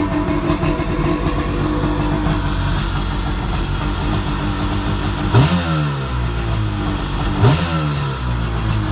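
1999 Sea-Doo XPL's ported 1000cc two-stroke twin, a bored-out 951, running on its first firing after a rebuild, exhaling through a White pipe with the resonator deleted. It idles unevenly, then is blipped twice about two seconds apart, the revs jumping up sharply and falling back.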